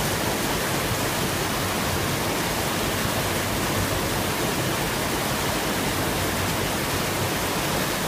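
Creek water pouring over a low concrete weir in a steady, even rush of whitewater.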